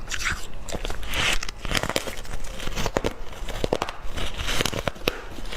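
Close-up biting and chewing of freezer frost and ice: a fast, irregular run of crisp crunches.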